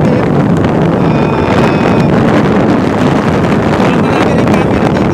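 Wind buffeting the microphone over the steady running of a Vespa 300 scooter on the move.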